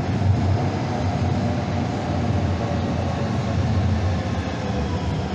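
Calgary Transit light-rail train running along the track: a steady rumble with a faint whine over it.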